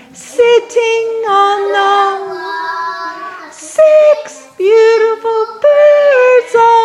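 A woman and young children singing a children's counting song together, holding notes and moving between pitches.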